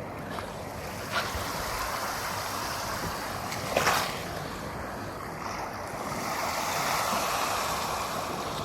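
Wind rushing over the microphone with steady sea and surf noise, broken by two short knocks about a second and about four seconds in.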